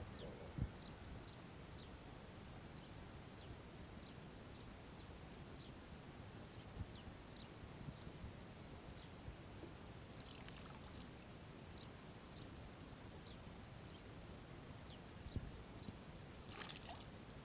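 Small ripples gently lapping at the shallow edge of a lake, faint and steady with scattered small ticks. Two brief louder rushes come about ten seconds in and near the end.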